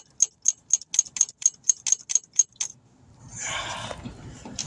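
Ratchet wrench clicking steadily, about four clicks a second, as a stuck AC compressor mounting bolt is backed out. The clicking stops a little under three seconds in, and a brief scraping rustle follows.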